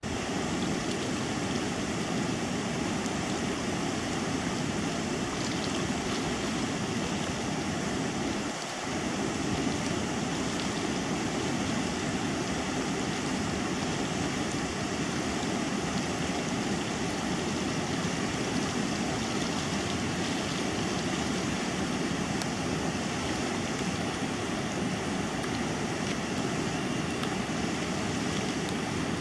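Class 3 whitewater rapids rushing in a steady roar of churning water, with a brief dip about nine seconds in.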